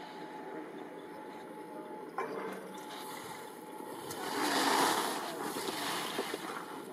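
Skis carving and scraping across firm snow as a slalom skier passes close by: a hissing swell that builds about four seconds in and eases as the skier moves away.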